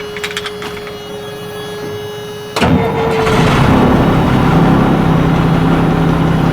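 Dump truck engine being started. A steady warning tone and a few light clicks come first. About two and a half seconds in, the engine fires abruptly and settles into a loud, steady idle.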